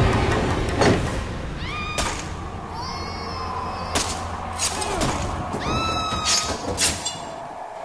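A cat meowing about three times, drawn-out cries that rise and then hold, over a low steady rumble, with a few sharp knocks in between.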